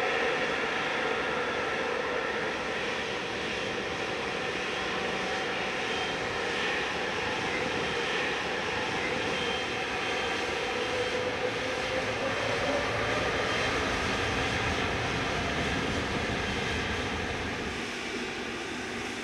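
Boeing 777-300ER's GE90 turbofan engines whining steadily at low taxi thrust, with a slight rise in pitch about midway.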